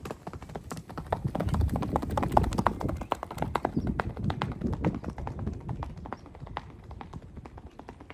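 Hoofbeats of a Kathiyawadi horse at a quick pace on a dirt road: a rapid run of sharp clicks that is loudest about two seconds in as the horse passes, then grows fainter as it moves away.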